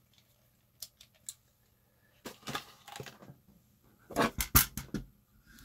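Handling of the opened power supply's metal case: a few light clicks, then a louder cluster of knocks and clicks about four seconds in as the unit is shifted.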